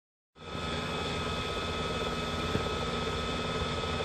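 Small electric motor and fan of a bubble machine whirring steadily, with a thin, even whine over a low hum. One light tap about halfway through.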